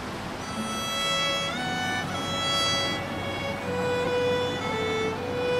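Instrumental background music led by a fiddle, playing held notes with a slide up in pitch about a second and a half in.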